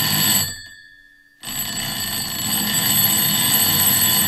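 IKEA DEKAD alarm clock's twin metal bells hammered by a motor: rapid ringing at full speed that stops about half a second in while the bells ring out. The ringing starts again about a second and a half in and grows louder as the motor speed is stepped up, then stops near the end.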